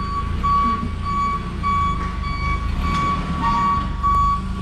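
Forklift's reversing alarm beeping evenly, a little under twice a second, while the forklift backs up, over a low engine rumble.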